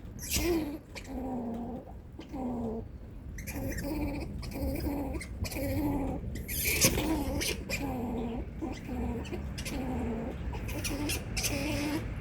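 A squirrel giving its warning call over and over: a short call that bends up and down, repeated about every two-thirds of a second, with sharp high clicks in between.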